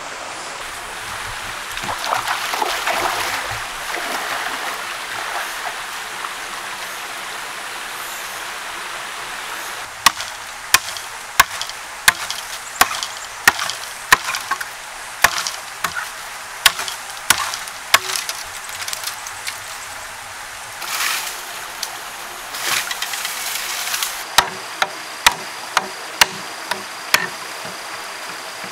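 Machete chopping into green bamboo, sharp strikes roughly every 0.7 seconds starting about ten seconds in. There is a rustling swish of bamboo leaves a few seconds in and again a little past twenty seconds.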